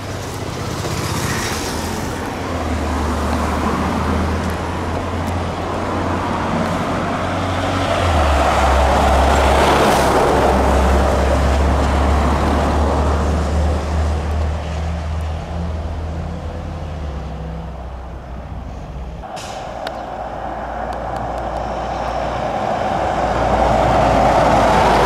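Heavy fire appliances going by close at speed: a water carrier tanker truck's deep diesel engine and tyre noise, loudest about a third of the way in as it passes, with a short sharp hiss around the same time. Near the end a Scania 94D fire engine approaches and its engine and tyre noise rise again.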